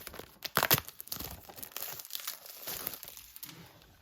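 Packaging on a 4K Blu-ray steelbook being torn open and crumpled by hand: crackling and crinkling, with two sharp tearing snaps about half a second in, then fading.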